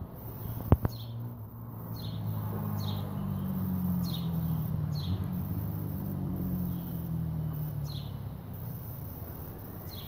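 A bird repeats a short falling chirp about once a second over a low hum that swells and fades over several seconds, with one sharp knock near the start.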